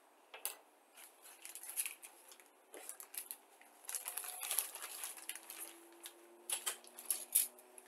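Thin clear plastic bag crinkling and rustling as it is handled, in scattered bursts that are busiest about halfway through, with a few light clicks.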